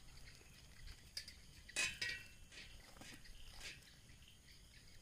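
Crisp, charred crust of a spit-roasted whole buffalo being torn off by hand: a few faint crackling rips, the loudest about two seconds in.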